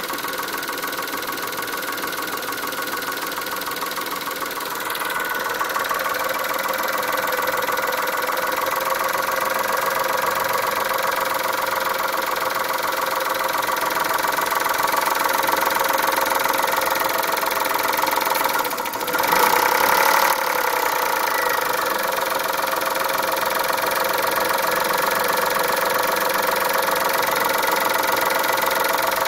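Chrysler Stratus/Cirrus engine idling warm on E85 fuel, with the noise that appeared after its timing belt was changed. It runs steadily, grows a little louder about five seconds in, and surges briefly for about a second roughly two-thirds of the way through.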